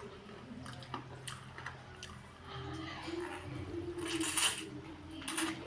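A person slurping noodles off chopsticks: small wet mouth clicks, then a loud slurp about four seconds in and a shorter one near the end, over a steady low hum.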